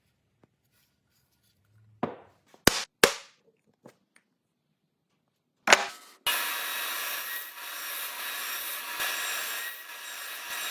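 A few sharp knocks of wood on wood, then from about six seconds in a power tool working wood runs steadily with a hissing, rasping noise.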